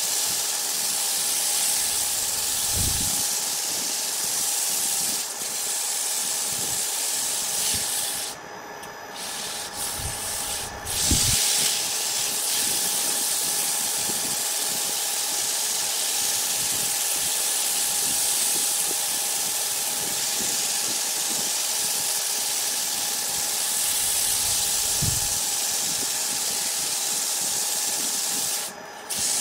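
Electric wood lathe running with a steady hum while hand-held sandpaper rubs against the spinning wood blank, making a continuous loud hiss. The hiss drops away briefly twice, about eight to eleven seconds in, and a few dull low thumps come through.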